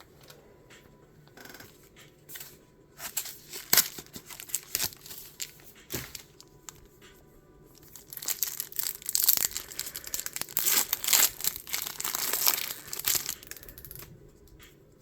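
Pokémon card booster pack packaging being torn open and crinkled: scattered crackles and tears about three to six seconds in, then a longer stretch of continuous crinkling and tearing from about eight seconds in until shortly before the end.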